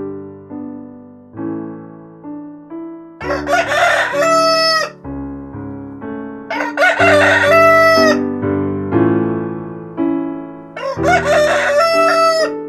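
A rooster crowing three times, each crow about one and a half seconds long and ending on a long held note, over piano music.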